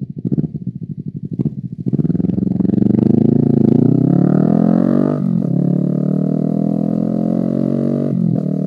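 Honda CBR250RR's parallel-twin engine through an Akrapovic exhaust, heard from the rider's seat. It pulses at low revs for about two seconds, then climbs in revs as the bike accelerates. The revs drop sharply for an upshift about five seconds in, climb again, and drop for another shift near the end.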